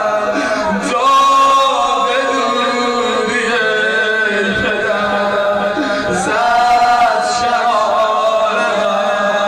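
A male voice chanting a noha, a Shia mourning lament, in long held notes that waver and glide between pitches.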